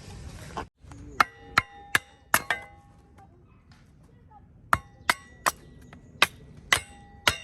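Sharp metallic clinks, about eleven in two bursts with a short ring after each, as the unpainted iron parts of a fire pit are knocked together while being handled.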